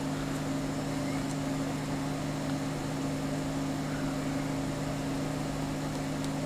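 Steady low mechanical hum: two low tones over a hiss, unchanging.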